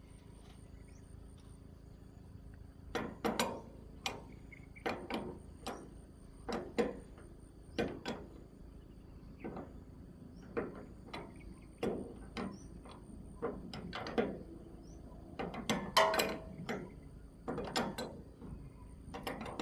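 Irregular metallic clicks and knocks, roughly one or two a second, starting about three seconds in: hand-tool work on an excavator's engine hose fittings. A steady chirring of crickets runs underneath.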